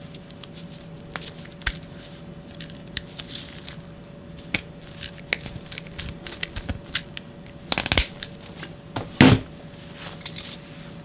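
Split ring pliers opening a steel split ring and a swivel and solid ring being worked onto it: scattered small metallic clicks and ticks with the crinkle of nitrile gloves, and two louder handling noises late on.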